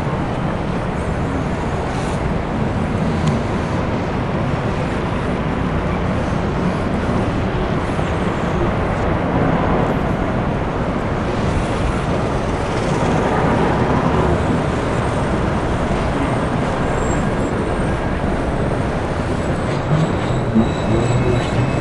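Steady city-street background noise: a dense, even low rumble with no distinct events standing out.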